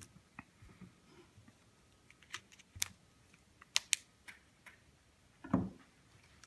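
Watch packaging being handled and opened: scattered light clicks and taps, with one louder, duller knock about five and a half seconds in.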